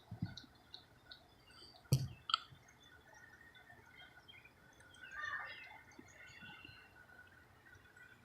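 Squirrel gnawing a nut shell: scattered sharp clicks and cracks, the loudest two about two seconds in, with a brief rustle about five seconds in.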